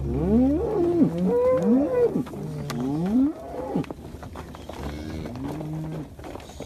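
Several cattle mooing, their calls overlapping and gliding up and down in pitch. The calls are loudest over the first three seconds or so, with a few quieter moos near the end.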